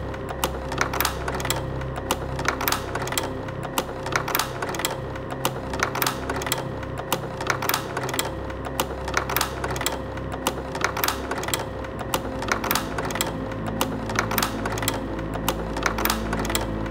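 Slide projector's changer mechanism clicking in a quick, even run as slides are cycled through the gate, over the steady hum of the projector running.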